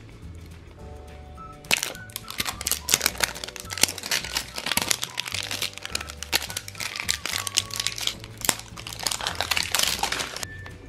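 Plastic wrap crinkling and crackling as it is peeled off a giant plastic surprise egg. A quick, uneven run of crackles starts about two seconds in and stops near the end, over background music.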